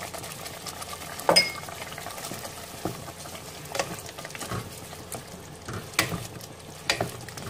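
Wooden spatula stirring paneer cubes into a sizzling tomato-onion masala in a pot, cooked to the stage where the oil starts to separate. A steady low sizzle runs under several knocks of the spatula against the pot, the loudest with a short ring about a second in.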